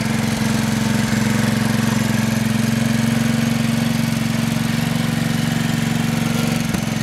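Small engine of a ride-on backyard GE switcher model locomotive running steadily with an even, fast pulse as it hauls a car of logs.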